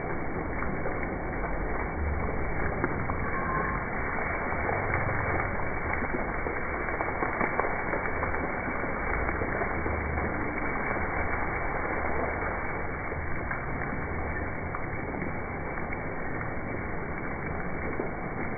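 Water splashing steadily from a fountain into its basin, with an Asian elephant spraying water over itself from its trunk near the start.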